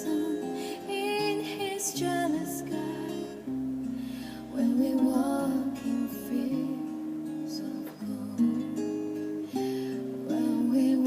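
Recorded slow ballad playing: an instrumental passage led by acoustic guitar, with sustained chords changing every second or two.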